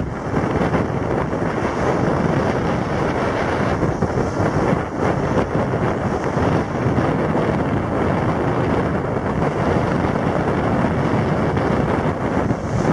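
Wind buffeting the microphone: a steady, fluttering rumble that drowns out the stage sound.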